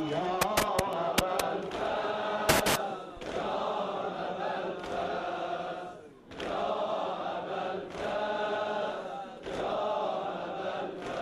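Crowd of men chanting a Shia mourning lament together, in phrases a few seconds long with short breaks between them. A few sharp slaps in the first three seconds.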